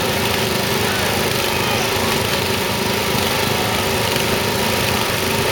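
Ride-on lawn mower engines running steadily, at racing speed.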